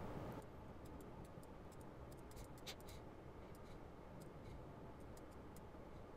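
Near silence: room tone with faint, irregular light clicks from a computer input device as brush strokes are made, one a little louder about two and a half seconds in.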